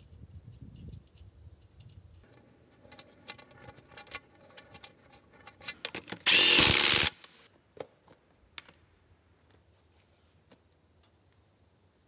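Light metallic clinks of tools on the wheel loader's hub, then about six seconds in a short, loud burst of an impact wrench lasting under a second, run through a long extension on a bolt or plug of the wheel hub.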